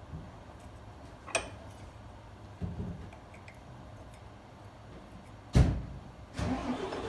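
A few separate metal knocks and clunks from bending a steel repair panel in a bench vise: a sharp click, a duller thud, then a heavier clunk about two-thirds of the way through.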